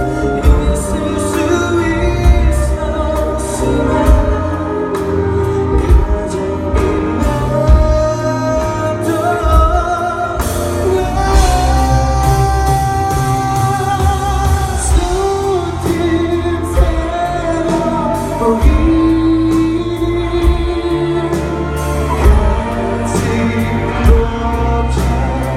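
Live band performance of a pop song: drums, bass and a sung melody with held, wavering notes, recorded in a concert hall.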